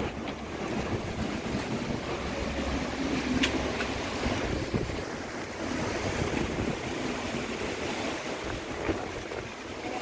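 Strong gusty wind rushing through the trees ahead of a rainstorm, with wind buffeting the microphone as a low rumble that is heaviest in the first half.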